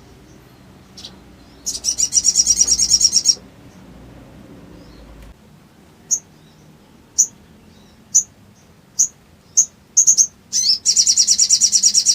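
Little spiderhunter (sogon) calling loud and high: a rapid chattering trill of about a dozen notes a second lasting over a second, then single sharp chips at uneven intervals, then a second rapid trill near the end.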